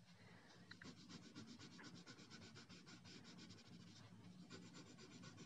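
Faint scratching of a coloured pencil shading back and forth on paper, in quick short strokes.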